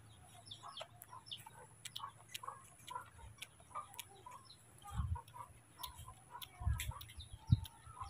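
Faint bird chirps and clucking fowl mixed with small scattered ticking clicks, and low dull thumps about five, six and a half and seven and a half seconds in.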